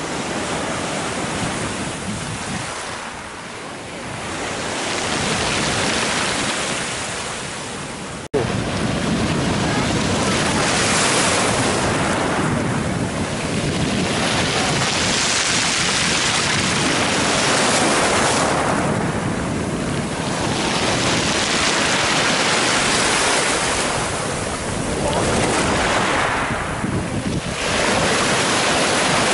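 Sea surf breaking and washing over a pebble beach, swelling and easing every few seconds, with wind buffeting the microphone. An abrupt break about eight seconds in, after which the surf is louder.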